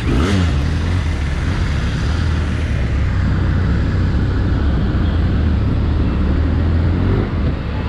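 A Benelli TRK 502X's 500cc liquid-cooled parallel-twin engine running steadily as the motorcycle pulls away at low speed.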